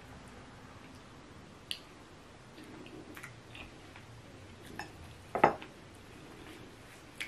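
Quiet hand-eating sounds: scattered soft clicks and smacks as a person eats eba and egusi soup with the fingers from ceramic bowls, with one louder click a little past halfway.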